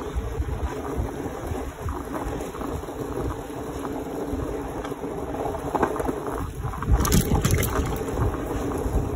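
Skateboard wheels rolling fast downhill over asphalt: a continuous rumble, with wind buffeting the microphone. It grows louder and rougher from about seven seconds in.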